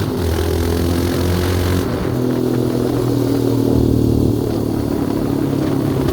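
Yamaha Raptor 700R sport quad's single-cylinder engine running while riding. About two seconds in the high rushing noise drops away and the engine note changes, then runs on steadily.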